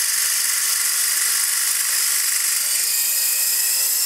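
Small dual-rotor RC toy helicopter's electric motors and rotor blades whirring steadily as it spins up for liftoff, carrying no payload. A thin whine comes through on top about three seconds in.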